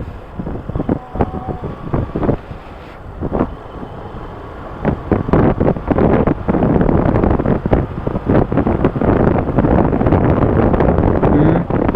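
Wind buffeting the microphone of a moving motorcycle, over the bike's engine and road noise; it gets louder about five seconds in.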